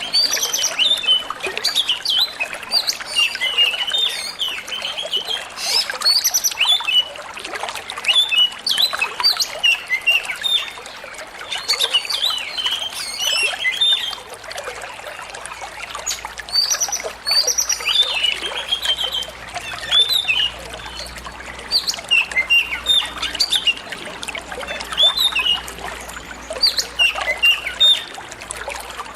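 Oriental magpie-robin (kacer) singing a fast run of short, varied chirps and whistles over the steady trickle of running water.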